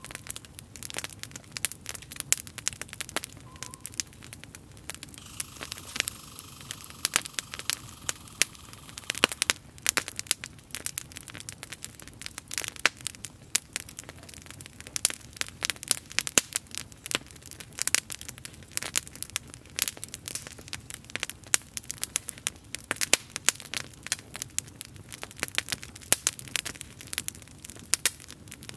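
Wood campfire crackling, with many irregular sharp snaps.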